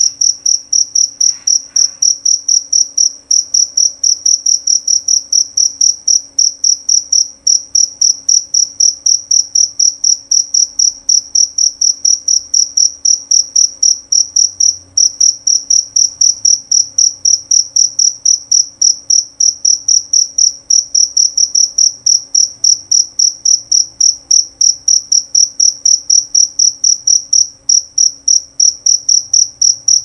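A male jerabang field cricket stridulating with its wings raised. It gives a loud, clear, high-pitched chirp over and over at an even pace, several times a second.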